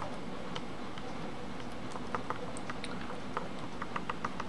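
Keys being typed on the HP 15-r210dx laptop's keyboard: light, scattered clicks, with a quick run of about half a dozen near the end.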